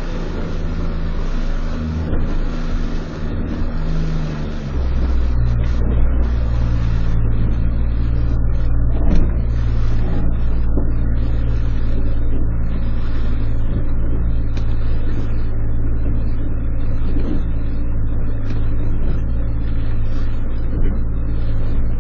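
A small fishing boat's engine running under way. About four seconds in its pitch drops, then it runs steadily and louder.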